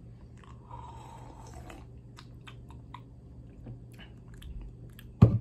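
A sip drawn from an energy drink can, followed by small wet mouth and lip clicks while tasting, over a low steady hum. One sharp knock near the end.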